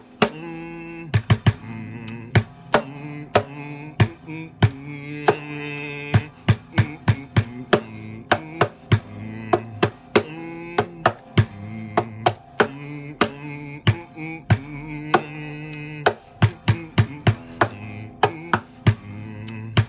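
Music: sharp percussive clicks in an uneven rhythm, often several a second, over sustained pitched notes.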